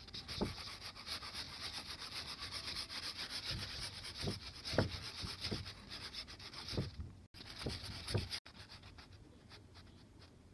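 Rapid, scratchy rubbing strokes against a surface, with a few dull knocks among them, thinning out after about seven seconds and faint after about eight and a half.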